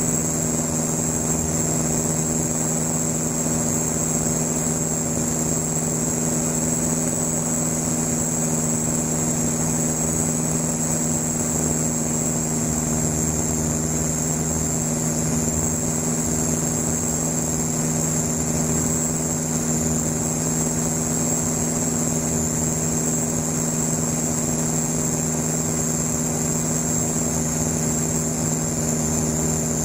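Van's RV-7 light aircraft's single piston engine and propeller droning at a steady, unchanging pitch, heard from inside the cockpit, with a thin steady high whine over it.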